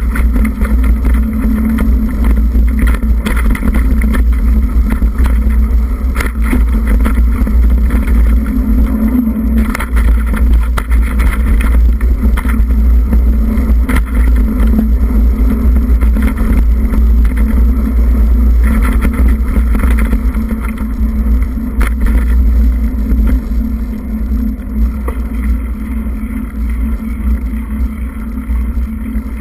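On-board sound of riding along a rough dirt forest track: a loud, steady low rumble with frequent rattles and knocks. It eases off somewhat over the last few seconds.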